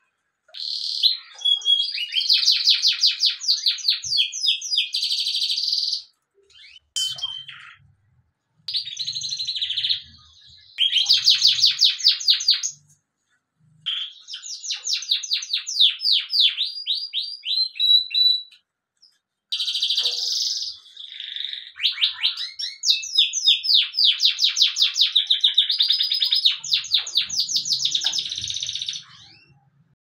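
Yellow domestic canary singing long phrases of fast trills and rapidly repeated notes, with short pauses between the phrases.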